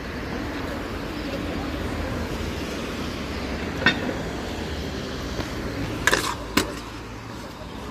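Stunt scooter on a concrete sidewalk and ledge over steady street traffic noise: a sharp click about four seconds in, then a few hard knocks about six seconds in as the scooter's wheels and deck hit the concrete ledge.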